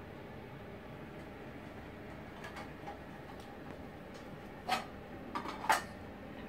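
A few light clicks and taps as replica Wonder Woman cuffs and their plastic packaging are handled, the three sharpest near the end, over a low steady room hum.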